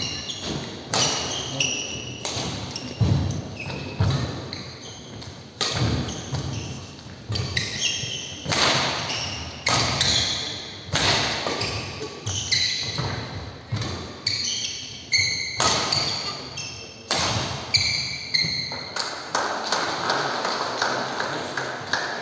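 Badminton rally: racket strikes on the shuttlecock about once a second, each with a short echo in the hall, with shoe squeaks on the court floor between strikes; the strikes stop a few seconds before the end as the rally finishes.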